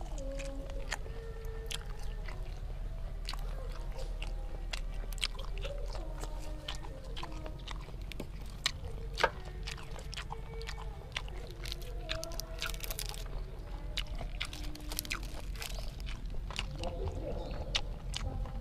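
Close-miked chewing of grilled apple snail meat with fresh lettuce and herbs: wet chewing broken by many sharp, crisp crunches, the sharpest about nine seconds in.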